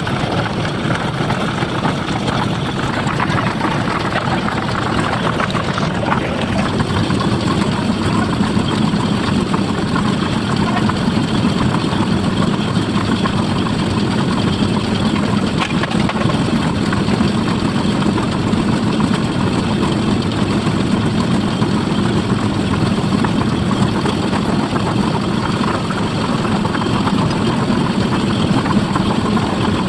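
An engine running steadily at a constant idle-like pace, with no breaks or changes.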